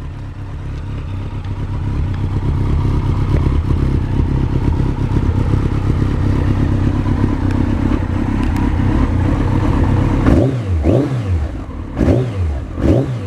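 Yamaha XJR1300's air-cooled inline-four engine idling steadily through an aftermarket Akrapovic slip-on muffler. Near the end the throttle is blipped a few times, each rev rising and falling quickly.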